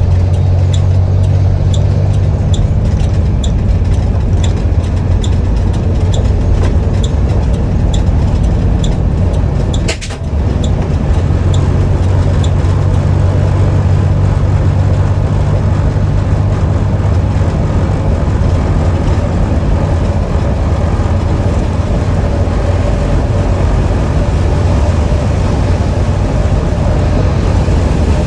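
Blue Bird All American bus running with a steady low engine drone. A light ticking repeats about twice a second for the first twelve seconds, and there is a brief sharp sound with a short dip in level about ten seconds in.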